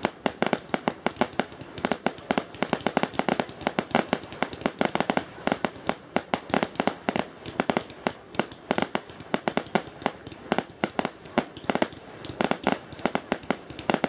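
Fireworks display: aerial fireworks bursting overhead in a rapid, irregular run of sharp bangs, several a second, without a break.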